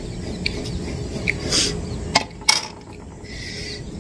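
Wind rumbling on the microphone, with a short hiss about a second and a half in and two sharp clicks a moment apart near the middle.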